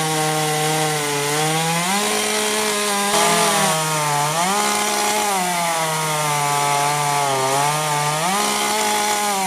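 EMAS EMLD5512B battery chainsaw, about 1200 W, cutting a 12 cm log. Its motor whine dips in pitch as the chain bites into the wood and rises again as it eases off, several times over.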